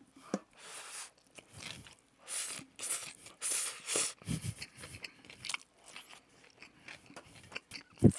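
Slurping and chewing a mouthful of cold spicy noodles with crunchy raw vegetables, picked up close on a headset microphone as a string of short wet, crunchy bursts. A sharp thump comes near the end.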